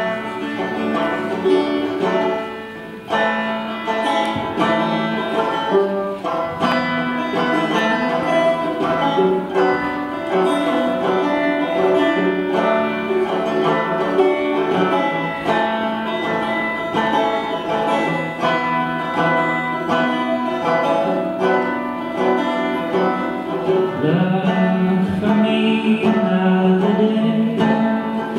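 Banjo played solo, picked quickly in a steady run of bright plucked notes. A man's singing voice comes in over the picking near the end.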